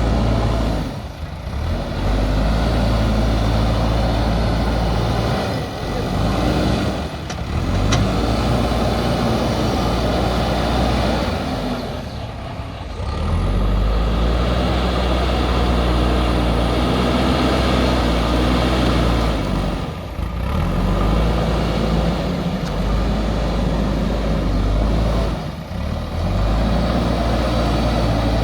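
JCB backhoe loader's diesel engine running under working load, a steady low hum with several brief dips.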